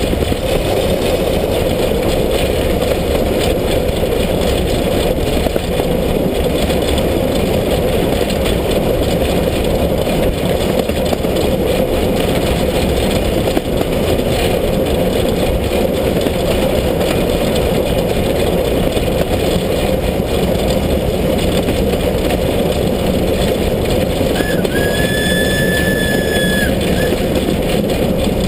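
Class 33 steam locomotive (a 2-10-0 of the wartime German class 52 type) running at speed, a loud steady rumble of wheels, running gear and exhaust. Near the end its steam whistle blows once, a single steady note held for about two seconds.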